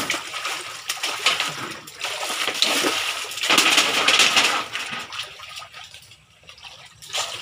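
Water splashing and churning in a small concrete fish tank as tilapia thrash at the surface, loudest around the middle and dying down near the end.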